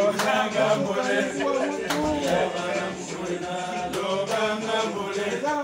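A group of voices singing and chanting together over music, with a few sharp beats among them.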